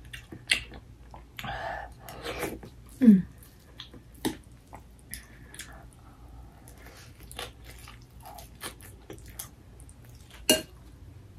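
Close-up eating sounds: chewing and mouth clicks over a mouthful of bibimbap, with a metal spoon clinking and scraping in a ceramic bowl, the sharpest clink about ten seconds in. A short falling hum from the eater comes about three seconds in.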